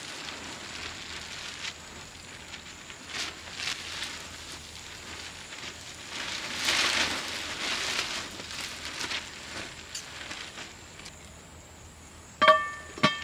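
Campfire crackling and hissing steadily, swelling briefly in the middle. Near the end, two ringing metal clinks, as of cookware, stand out loudest.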